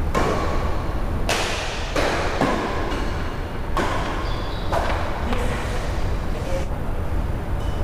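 Badminton rackets striking a shuttlecock during a rally: a sharp crack every second or so, over a steady low hum.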